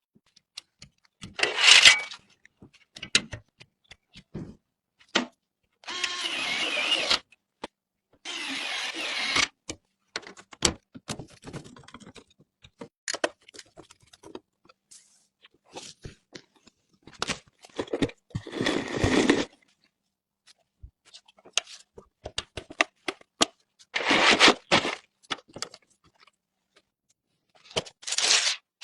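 Hands handling PC components during a build: irregular clicks and taps, with several short bursts of rustling and scraping.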